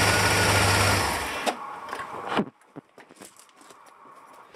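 A 1984 Corvette's Crossfire Injection 350 small-block V8 idling steadily, then stopping suddenly about a second and a half in. A few clicks and knocks follow.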